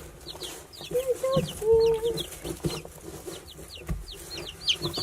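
Chickens calling, with many short high falling peeps throughout and a few longer held calls about one to two seconds in.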